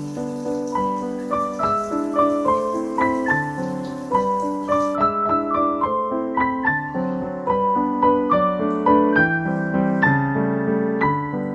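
Background solo piano music, a gentle run of melody notes over a moving bass line. A faint hiss underneath stops abruptly about five seconds in.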